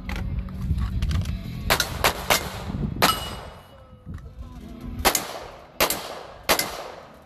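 Handgun shots on an outdoor range: a string of about seven sharp reports, three in quick succession about two seconds in, another a second later, then three more spaced under a second apart near the end.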